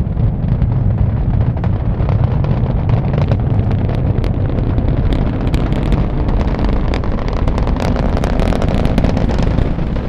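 Launch roar of a SpaceX Falcon Heavy's 27 engines at liftoff, heard from a few miles away: a loud, continuous low rumble laced with sharp crackling pops that come thicker after a few seconds, echoing back off the Vehicle Assembly Building.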